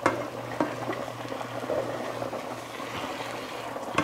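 Pot of pasta water boiling on the stove, with a spatula knocking and scraping against a skillet of browned ground beef being stirred: sharp knocks near the start, about half a second in, and near the end, over a steady low hum.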